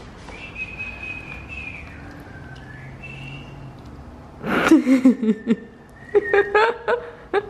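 A small dog whining in a thin, steady, high-pitched tone for the first three seconds or so. From about four and a half seconds in, a person laughs and exclaims loudly without words, which is the loudest sound here.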